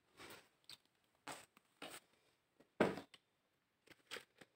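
About six brief, faint handling rustles, the loudest a little before three seconds in.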